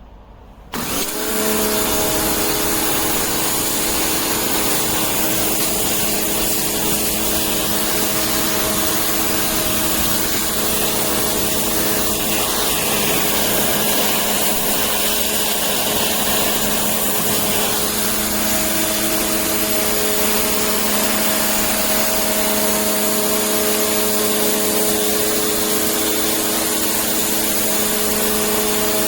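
Electric pressure washer starting up about a second in, then running steadily: a motor hum with several steady tones over a loud hiss.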